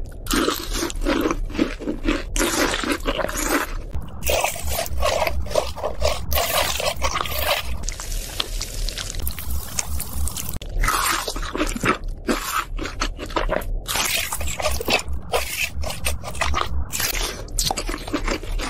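Crunchy biting and chewing of fried chicken, a fast run of crisp crunches and scrapes, with a steady hiss for about two seconds near the middle.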